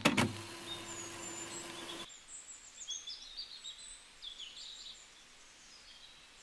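The tail of an edited-in sound effect, a noise with a steady low hum, cuts off abruptly about two seconds in. After it, faint birds chirping, in short high calls.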